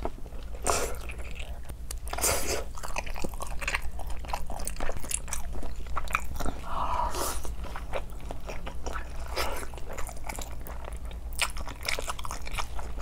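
Close-miked chewing and biting of a chewy, spicy buldak noodle wrap (buldak ssam): many small wet mouth clicks, with a few louder bites spread through.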